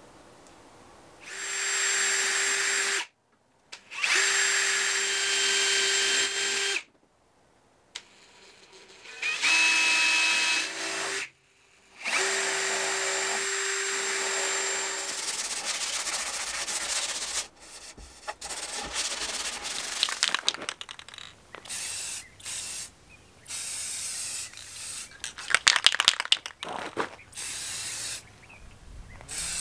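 Cordless drill boring small holes in a laminated wooden net hoop: four runs of a few seconds each, the motor holding a steady whine, with short pauses between. The second half is broken up into short, irregular noisy bursts, ending with the hiss of an aerosol spray can.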